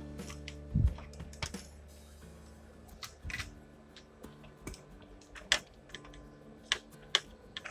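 Scattered sharp clicks and taps of small laptop parts being handled during reassembly, about half a dozen clear ones at irregular intervals.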